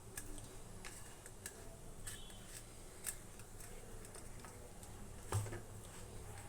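Faint, scattered clicks and taps of round eggplant slices being handled and rubbed with salt and turmeric in a dish, with one louder knock about five seconds in.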